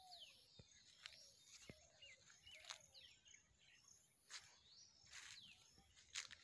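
Faint birdsong: small birds chirping with short falling whistles, and a thin high insect buzz coming and going. A few soft rustles are heard in the second half.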